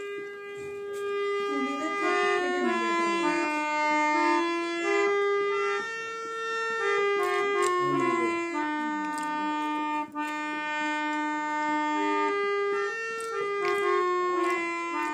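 Hand-pumped harmonium playing a slow melody of held reed notes, stepping up and down one note at a time.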